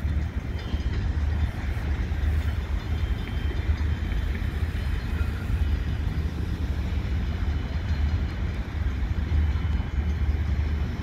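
Low, uneven rumble of wind buffeting the microphone, over the faint running of a Great Lakes Central train's diesel locomotives as they pull away down the line.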